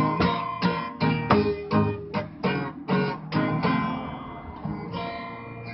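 Acoustic guitar strumming chords in a steady rhythm, then thinning out about four seconds in to a single ringing chord as the song ends.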